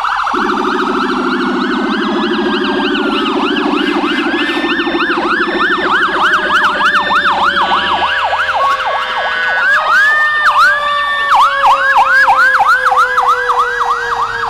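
Several emergency vehicle sirens sounding at once from passing ambulances and fire apparatus, their quick rising-and-falling yelp cycles overlapping. A low steady horn sounds from just after the start to about eight seconds in. In the second half a single tone slides slowly down in pitch while the yelping grows louder.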